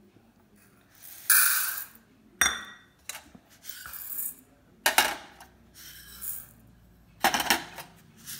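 Dry split lentils poured from small stainless steel bowls into another steel bowl: about four short pours of grains rattling onto metal, with sharp clinks of the steel bowls.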